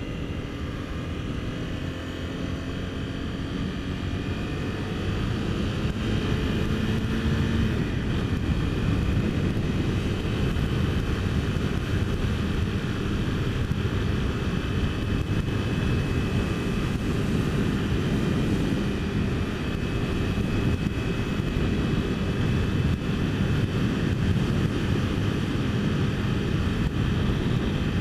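Honda CBR250R's single-cylinder engine pulling as the motorcycle speeds up, its note rising steadily over the first several seconds. It then settles into a steady cruise, with wind rushing over the microphone loudly over the engine's drone.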